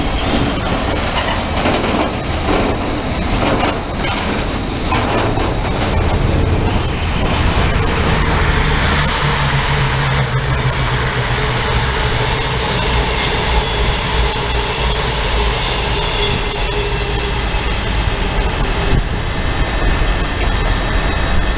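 A train moving through a station. Its wheels clatter over the rail joints for the first six seconds or so, then give way to a steadier, loud low rumble with a faint high whine above it.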